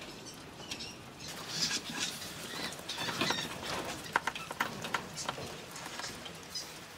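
Irregular scratching, clicking and rustling of mink moving about in wire-mesh cages, claws on the wire and straw bedding.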